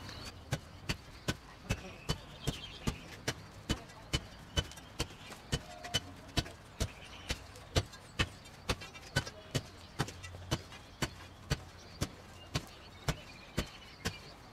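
Steel crowbar jabbed down into an old concrete footpath slab again and again, breaking it into pieces. The sharp strikes come in a steady rhythm of about two a second.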